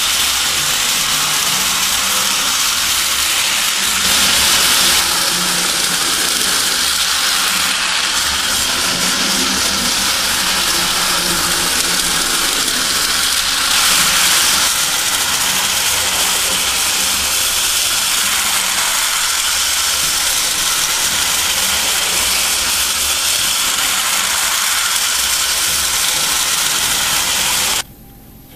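1930 Bing tinplate electric table-railway locomotive running around its tin track: the steady whirring, rattling hiss of the small motor and wheels on the tin rails, cutting off suddenly near the end as the train stops.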